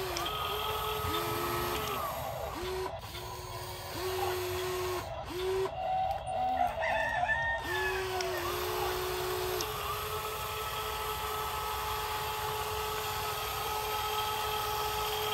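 Electric motors of a remote-control toy excavator whining in short stop-start runs as it drives and works its arm, then one longer steady run in the second half. A rooster crows about six seconds in.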